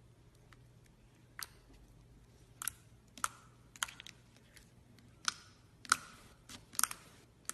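A series of sharp, short clicks and taps, about seven of them at uneven intervals, from objects being handled.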